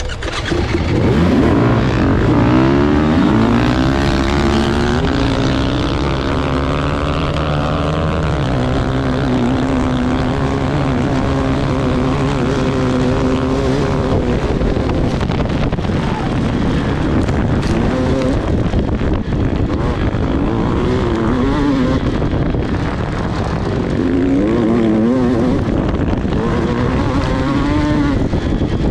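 Dirt bike engine at full throttle off a race start, the revs climbing and dropping at each upshift several times in the first few seconds. It then runs hard at high revs, rising and falling with the throttle over rough ground.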